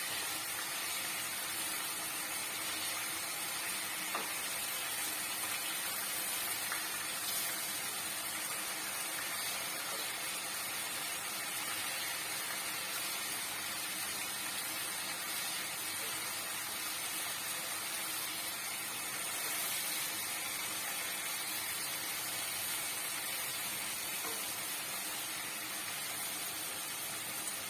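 Chicken tikka pieces frying in oil and ghee in a hot pan, with a steady sizzle.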